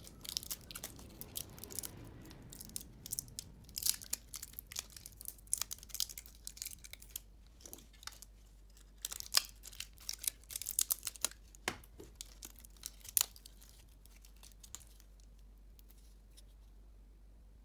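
Close-up handling noise: irregular crackling, tearing and small clicks, thinning out and dying away after about thirteen seconds.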